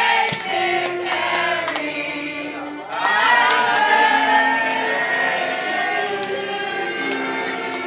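A group of voices singing together in held, stepping notes, with scattered claps.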